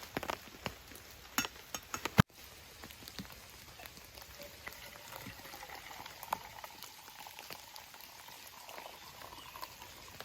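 A few sharp knocks and clicks, then, after a cut about two seconds in, water boiling steadily in a pot with a faint wavering tone.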